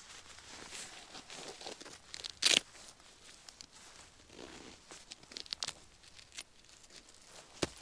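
Irregular rustling and crinkling of handled gear, with one loud sharp scrape about two and a half seconds in.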